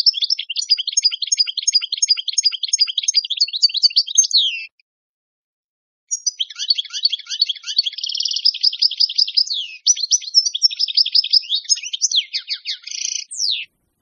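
European goldfinch singing: a fast, twittering song of rapid high notes in two long phrases, the first about four and a half seconds long, the second starting about six seconds in and stopping shortly before the end, with a clean silence between.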